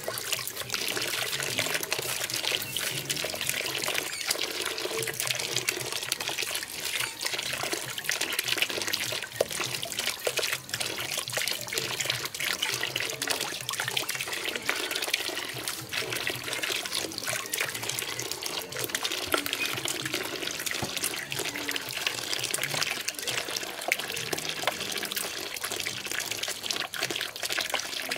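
Water running and splashing steadily.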